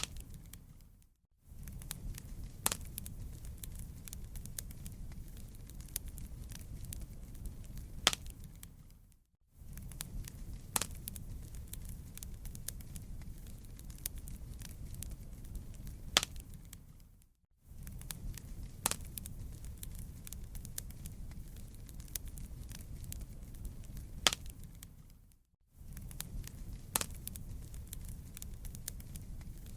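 Wood campfire burning, crackling with frequent sharp pops over a low steady rumble. The sound briefly fades out to silence and back in about every eight seconds.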